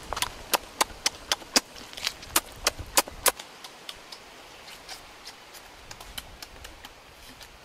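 A person biting and chewing cooked meat: a run of sharp clicks, about three a second, for the first three seconds or so, then fainter, sparser chewing clicks.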